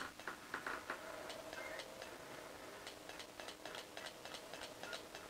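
Faint, uneven ticking and clicking from an ICOM IC-7300 transceiver as it steps through an SWR-graph sweep on the 10-metre band, keying its transmitter at each step.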